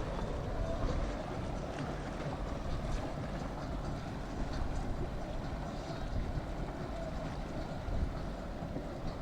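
Boat engines running on the water, a steady drone with uneven low rumble from wind on the microphone.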